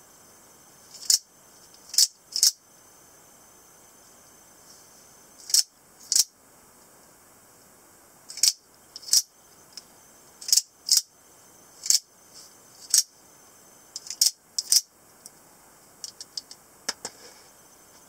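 Out-the-front automatic knife repeatedly firing its spring-driven blade out and snapping it back: about a dozen sharp clicks at uneven intervals, several in quick pairs, with a few lighter ticks near the end.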